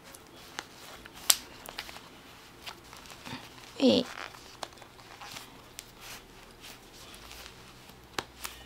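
Gucci leather belt with a metal buckle being fastened around jeans: scattered sharp clicks and rustling of leather and denim. A brief voice sound comes about four seconds in.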